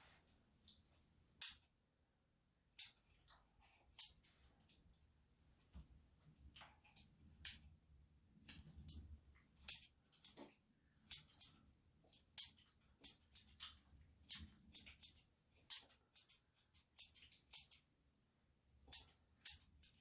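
Grooming scissors snipping through a Shih-Tzu's coat: short, crisp cuts at an irregular pace, some in quick runs of two or three.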